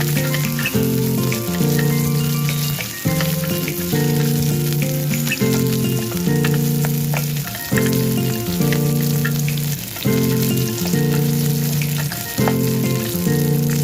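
Food frying in hot oil, sizzling with a steady fine crackle, under background music of sustained chords that change about every second and a half.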